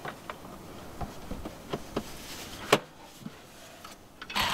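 Scattered light knocks and clicks as hands shift and handle the plastic casing of a Honda EU2000i generator, with one sharper knock a little under three seconds in. A rushing noise starts just before the end.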